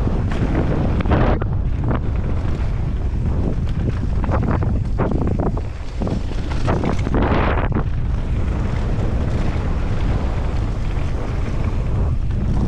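Wind buffeting the microphone of a helmet camera on a mountain bike descending a dirt trail at speed: a steady low rumble with louder rushes of noise now and then.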